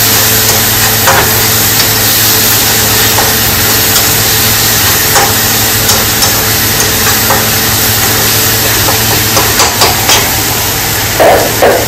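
Onion, tomato and green chilli masala frying in oil in a steel kadhai, a steady sizzle, while a steel spatula stirs and scrapes against the pan with scattered clicks and a few louder taps near the end.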